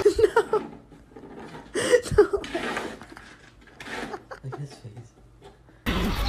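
A person chuckling in a quick run of short laughs, then laughing again briefly about two seconds in. Near the end a steady background noise comes in abruptly.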